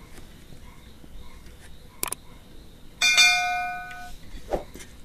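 A subscribe-button sound effect: a click about two seconds in, then a bright multi-tone bell chime that rings out and fades over about a second. Faint sounds of fingers working through rice on a plate can be heard near the end.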